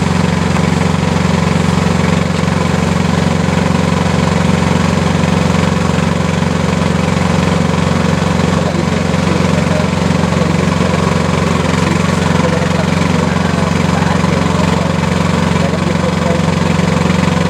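Small engine of a tracked auger drilling rig running steadily at one unchanging pitch while the rig drives a spiral auger into the soil.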